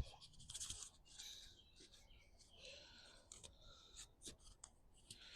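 Near silence with faint handling noise: light scratching and rustling, and a few small clicks.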